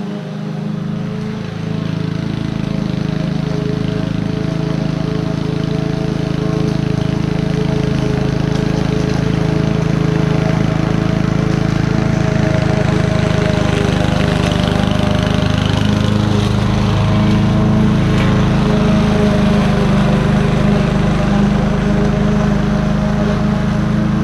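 Honda self-propelled lawn mower's four-stroke engine running steadily under load while mulching buffalo grass. It grows louder over the first few seconds as the mower comes closer.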